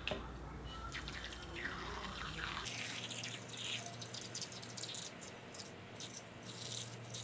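A small click as a scissor point pierces a food-colouring-filled balloon, then liquid food colouring squirting from the hole in a thin stream and spattering into a glass bowl.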